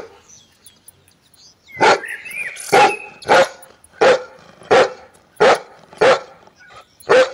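A German Shepherd-type dog barking: one bark at the start, then after a short pause a run of about eight loud barks, one every half-second to second.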